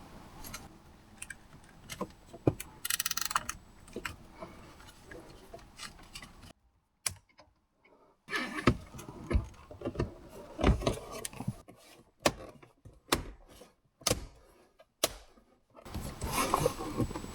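Plastic clicks, knocks and rattles of car interior trim being handled and fitted, with a brief ratcheting rasp about three seconds in, like a zip tie being pulled tight.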